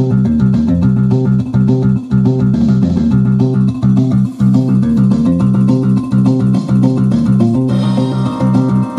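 Music track from a pinball machine's PinSound PLUS sound board, played through the cabinet speakers: a rhythmic tune with a strong plucked bass line. A fuller, brighter part comes in near the end.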